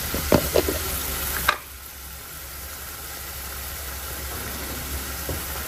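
A pan of tempe and spices sizzling on a gas stove, with a few sharp plastic clicks from a salt jar's lid being taken off in the first second and a half. About a second and a half in, the sizzle drops suddenly to a softer, steady simmer.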